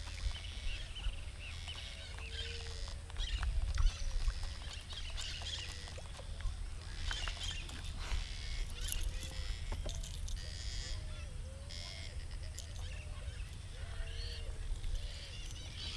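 Many short, arching bird calls from around the river, mixed with higher chirps, over a steady low rumble of wind on the microphone; a brief louder bump comes about four seconds in.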